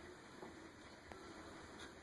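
Near silence: faint room tone with a couple of small ticks.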